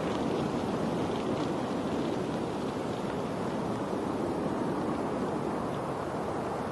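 Steady rushing water noise, even and unbroken, with a few faint scattered ticks.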